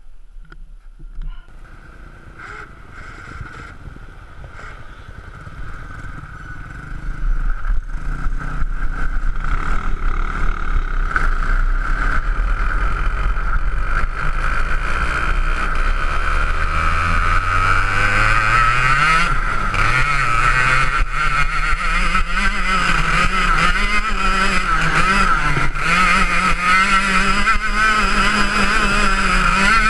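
Ice kart engine heard from an onboard camera: quieter rustling and clicks for several seconds, then the engine comes up loud about seven seconds in and drives on, its pitch climbing and then rising and falling with the throttle.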